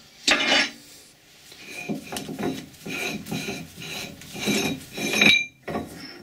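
Metal collet chuck being twisted and worked off the lathe's spindle nose by hand: a clunk at the start, then a run of rasping metal-on-metal scrapes with a ringing squeak, stopping suddenly near the end.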